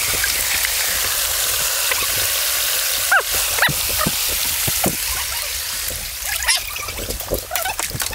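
Shallow creek water running steadily over rocks. A few short sliding squeaks come about three to five seconds in, and scattered clicks and knocks near the end.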